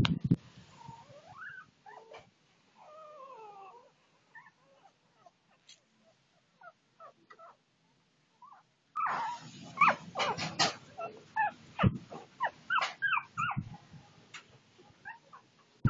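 A litter of young puppies whimpering and squeaking. There are faint wavering whines in the first few seconds. From about nine seconds in comes a louder run of short high squeals and yelps over rustling close to the microphone.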